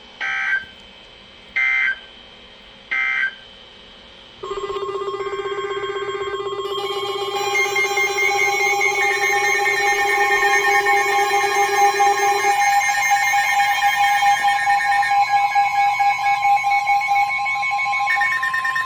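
Three short Emergency Alert System data bursts (the end-of-message code) in the first three seconds. Then, from about four seconds in, a loud, steady electronic alert tone of several pitches sounding together: the attention signal ahead of the next flash flood warning.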